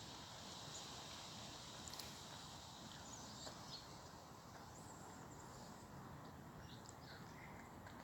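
Quiet outdoor ambience: a steady faint hiss with a few soft clicks and faint high chirps.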